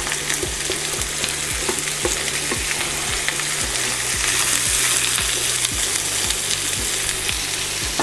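Diced carrots, red onion and celery sizzling as they hit hot oil in a frying pan, then stirred with a spatula, with soft knocks recurring about twice a second. The sizzle swells a little toward the middle.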